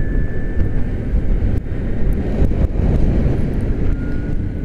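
Zero SR electric motorcycle on the move: a thin, high electric-motor whine over heavy low wind and road rumble, the whine settling to a slightly lower pitch near the end.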